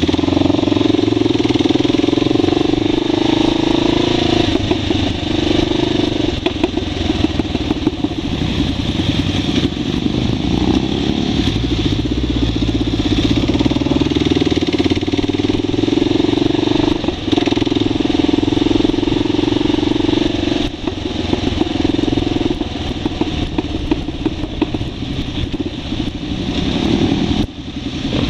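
Motorcycle engine running at a steady cruising speed, heard from the bike itself with wind noise over it, easing off briefly a couple of times near the end.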